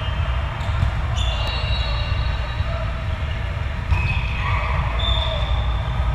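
Indoor volleyball rally: athletic shoes squeaking on the sport-court floor several times and a sharp ball strike about four seconds in, over a steady low rumble in the hall.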